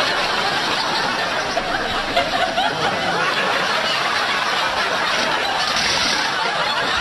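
Studio audience laughing and chuckling steadily, many voices at once.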